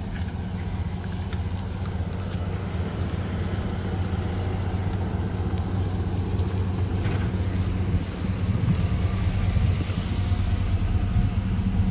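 A pickup truck's engine running steadily with a low, even sound.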